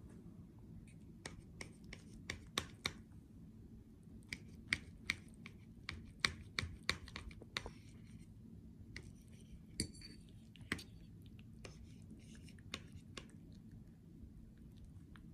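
Steel knife and fork clicking and scraping against a ceramic plate while cutting an omelette: irregular sharp taps with softer scrapes between them, thinning out after about eleven seconds.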